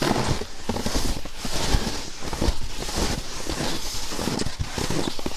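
Footsteps crunching in deeply frozen snow, several steps at a walking pace.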